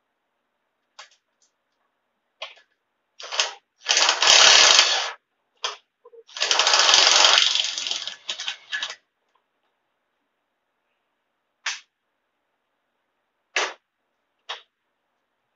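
Cordless impact driver run in two bursts of hammering rattle, each about one to two seconds long, backing out fasteners during teardown of the tractor, with short clicks and clinks of tools and metal parts before and after.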